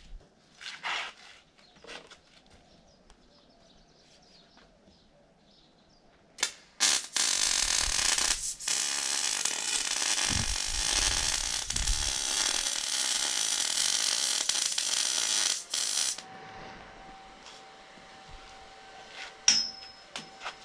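MIG welder arc welding a tube chassis: a short first burst about six seconds in, then one steady bead of about nine seconds that stops abruptly.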